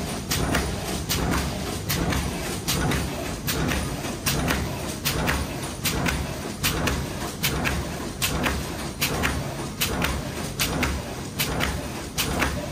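Automatic sheet-feeding production machine running, clacking about twice a second over a steady low hum.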